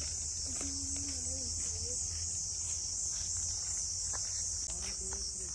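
Insect chorus in woodland: a steady, high-pitched buzz throughout, with a person's voice faintly heard a couple of times.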